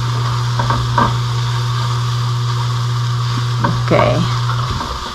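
Sliced bell peppers and onions sizzling in a metal skillet while being stirred with a silicone spatula, a steady frying hiss with a few stirring strokes. A low steady hum runs underneath and stops shortly before the end.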